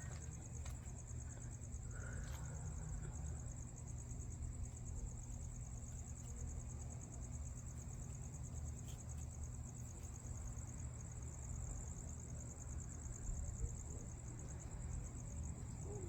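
Crickets chirping in a steady, high-pitched, rapidly pulsing trill, over a low steady rumble.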